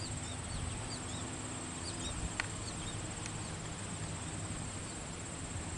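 Outdoor ambience: a steady, high-pitched insect trill, with a few short bird chirps in the first couple of seconds and a couple of faint clicks.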